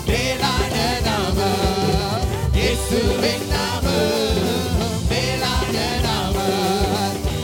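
Live worship band playing a Tamil Christian song: keyboards and bass guitar over a steady drum beat, with singing on top.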